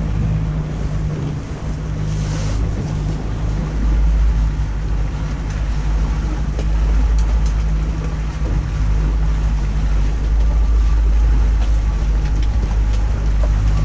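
Motorboat running under way, a steady low engine drone mixed with water and hull noise, heard from inside the canopied cockpit of an Amur boat.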